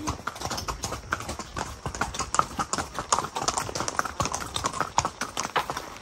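Several horses' hooves clip-clopping at a walk on a dirt and cobblestone lane, a run of uneven, overlapping hoof clicks.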